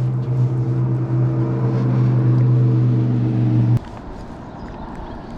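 A steady motor hum with a low, even pitch, which cuts off abruptly about four seconds in, leaving a softer background hiss.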